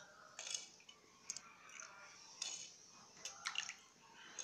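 A metal spoon working thick coconut milk in a clay bowl: faint scrapes and light taps against the bowl, with liquid dripping into a glass bowl below.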